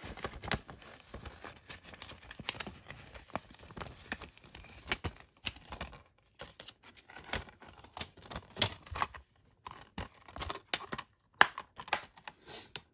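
Plastic Blu-ray keep case being handled: paper cover artwork rustling against the case and a run of irregular clicks and taps from the plastic, with the sharpest click near the end.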